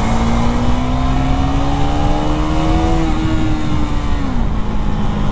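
KTM 390 Duke's single-cylinder engine under way, its note rising steadily for about three seconds as the bike accelerates in gear, then holding and dropping about four seconds in as the throttle is eased. Wind and road noise rush over the microphone throughout.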